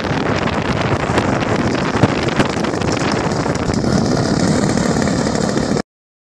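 Engine of a Yak 54 radio-controlled model aeroplane running as the plane lands and rolls along the runway, under heavy wind buffeting on the microphone. The sound cuts off suddenly near the end.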